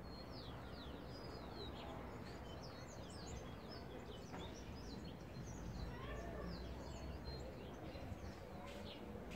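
Many small birds chirping in quick, short, falling notes, thickest in the first half, over a steady low background noise.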